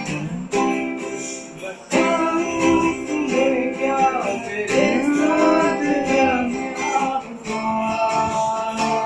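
A man singing a slow song to a strummed acoustic guitar, the voice gliding and held over ringing chords.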